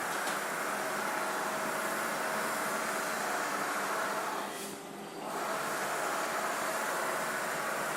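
Large-format outdoor digital printer running, its print-head carriage sweeping with a steady mechanical whir and hiss; the sound dips briefly about five seconds in, then picks up again.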